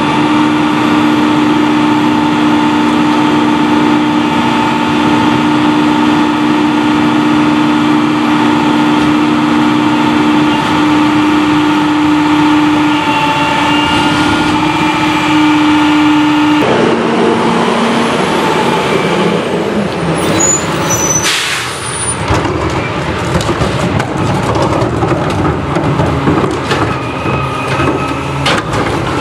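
CCC Pak-Mor rear-loader garbage truck's diesel engine running steadily with an even hum for a little over half the time. After that comes a one-second blast of air hiss from the truck's air system, then irregular clanks and knocks as carts are handled at the rear hopper.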